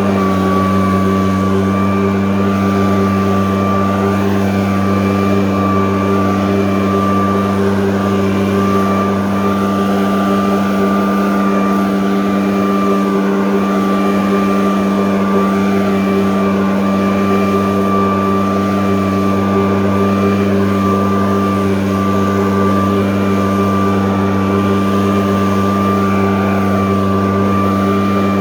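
85.5cc engine-powered blower (model 995) running at a steady, high speed, a constant engine note with a steady high whine above it and no change in pitch.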